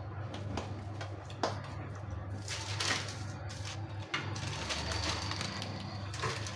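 Kitchen handling sounds: a sheet of paper crinkling as it is peeled off a marble board, and a coconut barfi ball being patted and set down, with a few light knocks. A steady low hum runs underneath.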